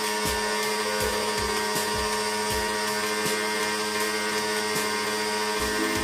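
An electric pressure washer's motor running steadily with a constant whine, under background music with a steady beat.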